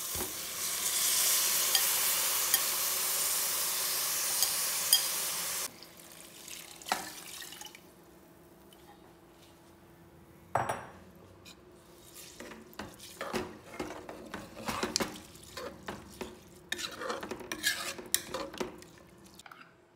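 Loud steady hiss and crackle as rice goes into the hot pressure cooker over the frying masala, cut off suddenly after about six seconds. Then a metal spoon stirring and scraping in the aluminium pressure cooker, with irregular clinks and a sharp knock about ten seconds in.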